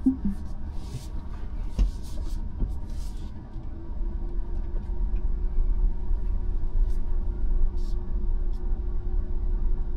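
Low rumble of a Tesla Model Y electric SUV manoeuvring slowly, heard from inside the cabin, with a few faint clicks in the first few seconds. A steady hum comes in about three and a half seconds in and holds.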